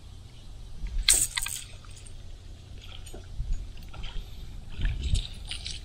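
A hooked shellcracker (redear sunfish) splashing at the surface beside the boat: one loud splash about a second in, then smaller splashes and knocks, over a low rumble of wind and handling on the microphone.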